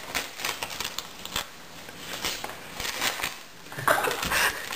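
Gift-wrapping paper crinkling and rustling in short, irregular crackles as a Bengal cat pushes her head into a wrapped present, growing louder about four seconds in.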